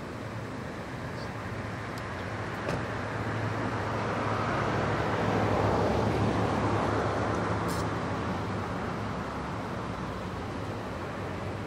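Road noise of a passing vehicle: a steady rush that swells to its loudest about halfway through and then fades, over a steady low hum of traffic. A few faint ticks sound in between.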